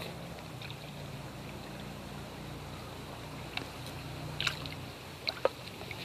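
Creek water running steadily, with a few faint clicks and knocks in the second half.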